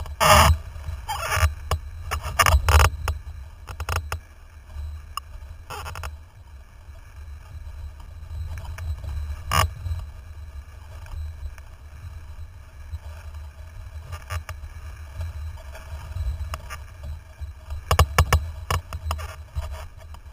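Wind rumbling on a windsurf rig's mast-mounted action camera while the board sails, with water slapping and splashing against the rig: a cluster of sharp splashes near the start, single ones about 4, 6 and 10 seconds in, and another cluster near the end.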